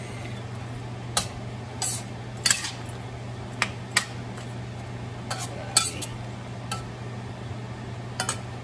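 A long metal spoon stirring in a stainless-steel pan of prawns in sauce, clinking and scraping against the pan about nine times at an irregular pace.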